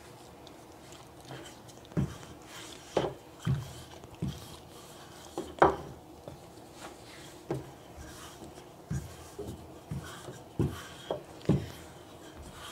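Bread dough being pressed out by hand and rolled thin with a wooden rolling pin on a floured countertop: irregular soft knocks and thumps about once a second.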